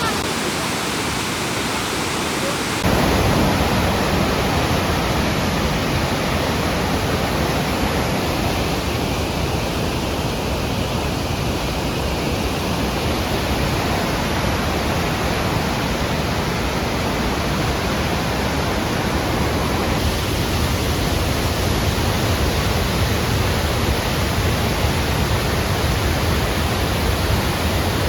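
Lechfall waterfall rushing steadily, a loud even roar of falling water that steps up and gains a deeper rumble about three seconds in.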